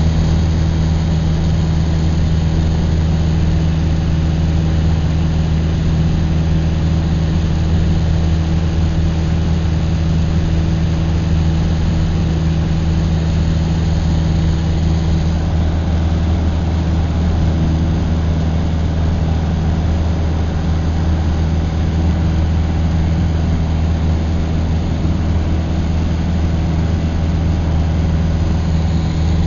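A steady, low engine drone that runs evenly and unchanged, without revving.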